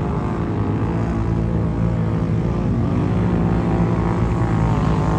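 Off-road racing vehicle engines running hard during a mud race, a steady drone of several engine tones with slight rises and falls in pitch.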